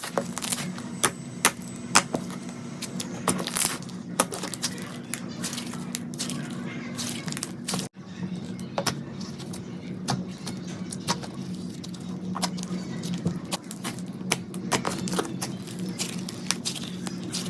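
Slime being squeezed and pressed by hand, making irregular sharp clicks and pops over a steady low hum. The sound drops out briefly a little before halfway.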